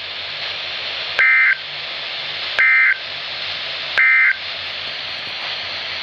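Midland weather alert radio sounding the three short data bursts of an EAS end-of-message code: three brief buzzy two-tone chirps about a second and a half apart, over steady radio hiss. They mark the end of the severe thunderstorm warning alert.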